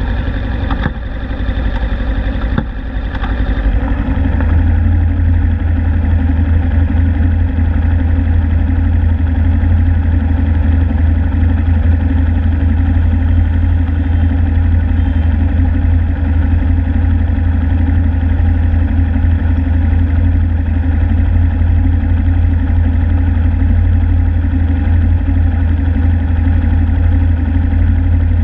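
Suzuki Inazuma GW250's parallel-twin engine idling steadily, a low hum that gets a little louder about four seconds in.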